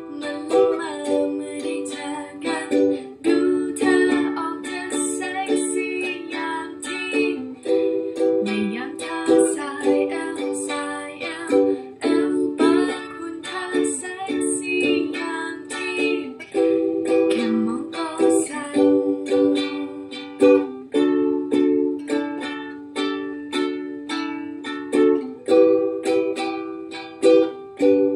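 Ukulele strummed in a down-down-up-up-down pattern through the D, E minor and G chords of a three-chord song, with brief breaks between chord changes every few seconds.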